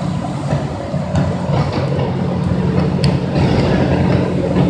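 A steady low machine hum, with a couple of faint clicks about a second in and about three seconds in.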